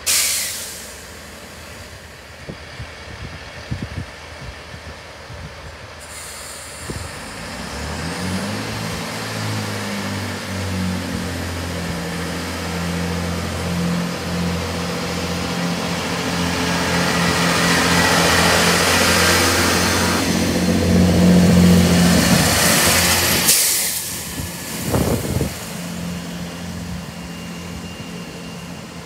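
Class 165 diesel multiple unit pulling away from a station platform: a short hiss at the start, then the underfloor diesel engines open up with a low, steady note that grows louder as the train moves closer. It breaks off suddenly about three-quarters of the way through, and a quieter steady diesel hum follows.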